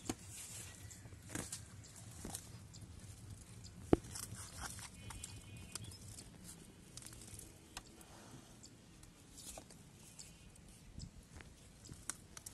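Faint clicks and rustles of hands handling the line and hook of a fishing pole, with one sharper click about four seconds in.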